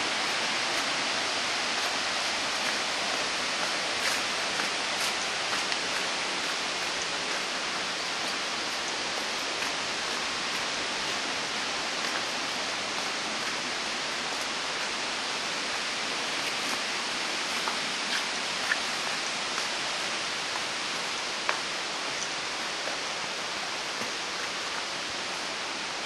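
Waterfall rushing steadily, an even continuous noise of falling water, with a few faint clicks here and there.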